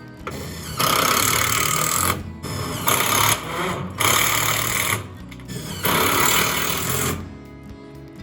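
A power driver running in four bursts of about a second each, driving screws through metal siding panels.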